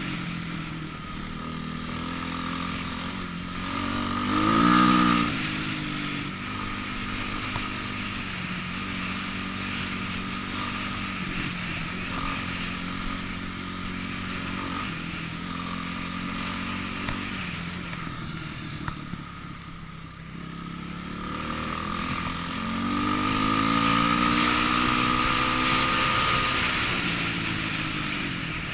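Dirt bike engine running under way: the revs climb sharply about four seconds in, hold steady through the middle, drop off briefly about two-thirds through, then rise again and hold high near the end.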